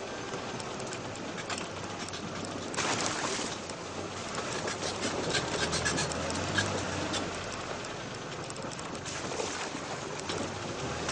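Off-road vehicle crawling along a rutted dirt track: engine running low under a steady rush of noise, with frequent rattles and knocks from the body over the bumps, and a louder rush about three seconds in.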